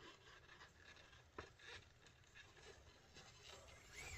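Faint scratching and light clicks of a small RC crawler's tyres and chassis working over obstacles, with one sharper click about a second and a half in. Near the end a faint wavering whine starts up.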